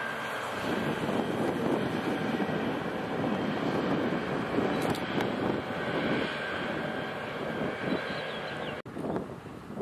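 Steady engine rumble with a roaring, wind-like noise over it. It cuts out abruptly about nine seconds in and is quieter after that.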